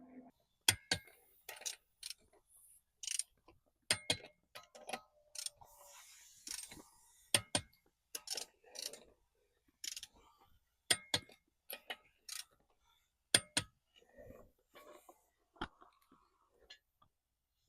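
Irregular sharp metallic clicks and clinks, a couple of dozen spread unevenly, typical of hand tools and metal parts being handled.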